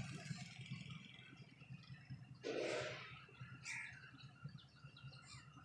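Faint low rumble of an approaching Pakistan Railways diesel locomotive. Birds chirp over it, and a single short, harsh burst comes about two and a half seconds in.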